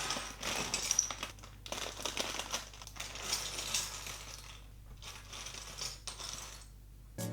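Small plastic Lego pieces being handled and pressed together: scattered light clicks and rattles.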